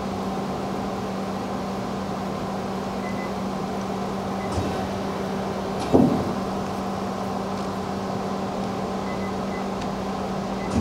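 The 10-station tool turret of a DMG Mori NLX-2500/500 CNC lathe indexing over a steady machine hum, with a soft knock about six seconds in as the turret locks into its new station.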